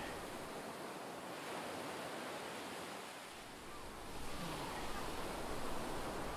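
Steady wash of sea surf on a sandy beach, with a little wind, swelling slightly about four seconds in.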